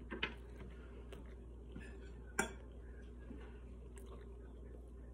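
A person quietly chewing a bite of parmesan-crusted tilapia, with a few soft clicks near the start and one sharp click about two and a half seconds in.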